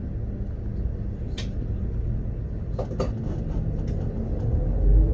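Steady low rumble of a moving vehicle heard from inside, with a few sharp clicks. Near the end a whine rises in pitch as the rumble swells.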